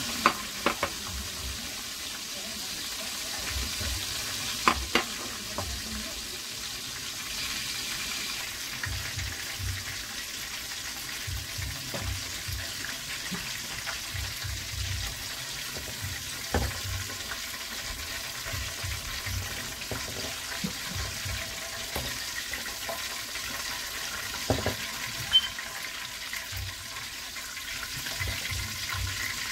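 Chicken pieces frying in oil in a pot, a steady sizzle, with a few sharp clinks of a metal slotted spatula against the pot as the pieces are turned: near the start, about five seconds in, and twice more later on.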